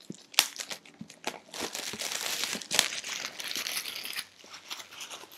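Packaging wrap crinkling and tearing as it is pulled off a newly unboxed Bible: a dense run of crackles with sharper snaps, thinning out toward the end.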